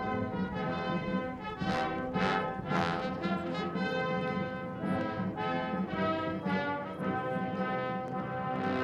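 A military band playing, with brass instruments carrying the tune.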